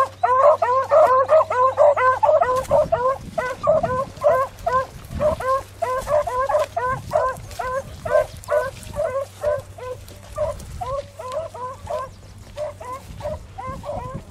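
A brace of beagles baying on a rabbit's trail: a fast run of short rising-and-falling yelps, several a second, thinning out and growing fainter toward the end.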